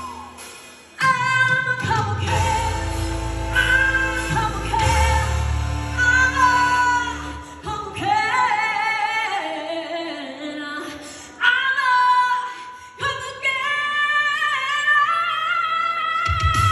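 Music: a woman singing long held notes with vibrato over instrumental backing, in several phrases with short breaks between them.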